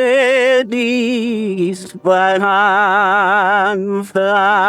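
A man singing long, sustained notes with a wide, even vibrato, chant-like, in three phrases with short breaks between them; the first phrase slides down in pitch at its end.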